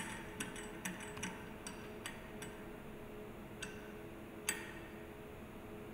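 Light metallic clicks and clinks of stainless-steel agitator parts knocking together as the O-rings and oil trap ring are fitted on the shaft in the bearing frame. There are about nine sharp taps, the loudest at the start and one about four and a half seconds in, over a faint steady hum.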